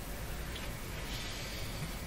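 Steady low hum and hiss from a Hallicrafters S-40A shortwave receiver: residual power-line noise that its line filter capacitor is meant to suppress, heard here with the line plug reversed. It is mixed with the low sound of a household furnace running.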